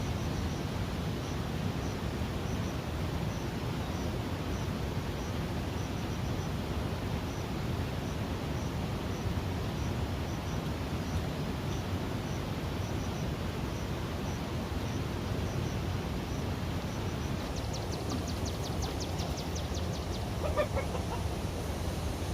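Outdoor ambience: a steady low rumble of noise, with faint high chirps repeating about twice a second and a short bird call near the end.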